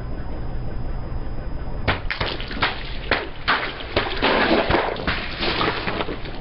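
Car tyre rolling over a row of liquid-filled plastic tubes. About two seconds in they start bursting one after another in a string of sharp pops and wet splatters, over a low rumble.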